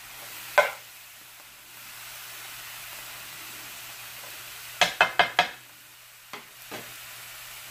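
Onions, bell peppers and mushrooms sizzling in oil in an electric skillet while being stirred with a silicone spatula. The spatula knocks against the pan sharply about half a second in, then four times in quick succession around five seconds in, with two lighter taps after.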